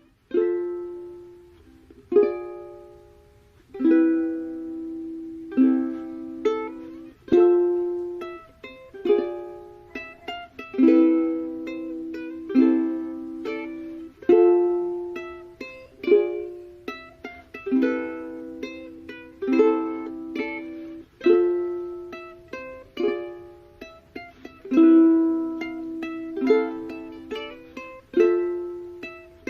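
Background music: a gentle plucked-string tune, with a stronger chord struck about every two seconds and lighter notes between, each ringing and fading.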